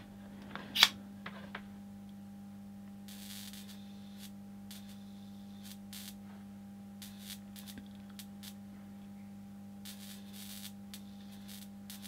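Faint hissing crackle of high voltage sparking at the wire connector under a 3000-volt insulation test, in two spells, about three seconds in and again near ten seconds, over a steady hum; a click about a second in. The sparking comes from capacitance between the two wires, not an insulation breakdown: the tester does not trip.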